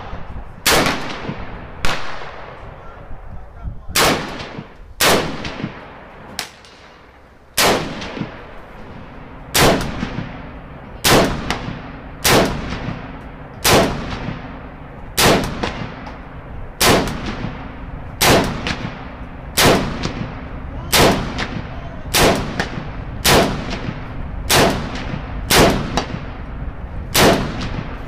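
A long string of single shots from a PTR 91 semi-automatic .308 battle rifle, about twenty in all, a little over a second apart. Each shot has a ringing echo tail, and one in the middle is weaker than the rest.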